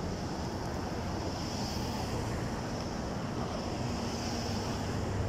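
Steady street traffic noise, with wind rumbling on a phone microphone carried by someone walking.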